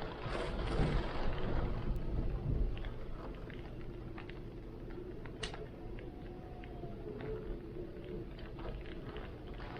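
Heavy wind and rain: a strong gust swells up with a deep rumble over the first few seconds, then eases back to a steady blow. Scattered sharp ticks of raindrops sound throughout.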